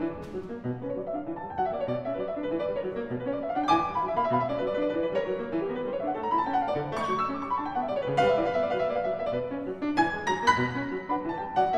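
Background piano music: rolling arpeggios that climb and fall over evenly spaced low bass notes.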